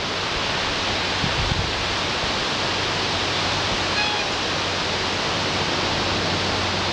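Bulldozer running steadily as it works over a hill: a dense, even rush of noise with a low hum underneath. A faint short tone sounds briefly about four seconds in.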